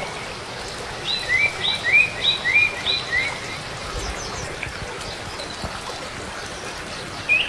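Steady rush of running water, with a bird chirping over it: four quick two-note phrases about a second in, then chirping again near the end.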